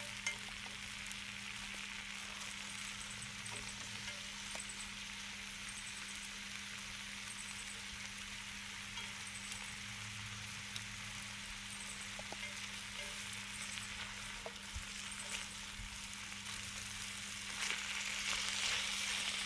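Steady sizzling hiss from a campsite grill, with a faint low hum underneath and small scattered ticks.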